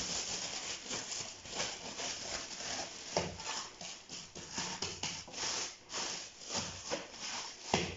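Thin plastic bag crinkling and rustling in quick, irregular crackles as hands wrap it around a ball of dough.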